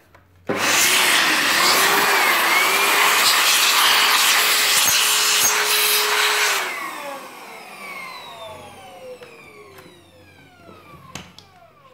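A blast of air blown over an inverter welder's circuit board to clear dust: a loud, steady rush of air for about six seconds that cuts off suddenly, followed by a whir gliding down in pitch over several seconds as something spins down.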